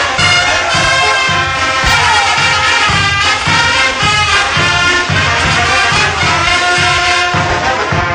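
Brass band playing a morenada: trumpets and trombones over a steady bass-drum beat.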